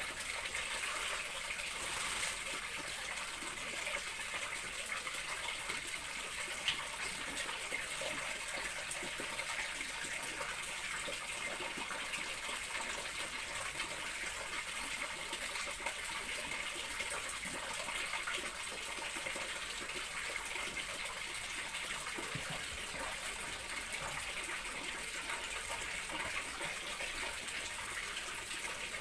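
Water running steadily from a tap, an even, unbroken rush with no pauses.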